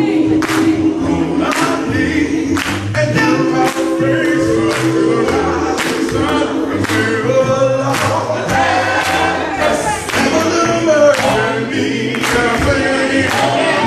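Male gospel vocal group singing in harmony, the other voices holding chords under the moving lead line, with a sharp beat marked roughly once a second.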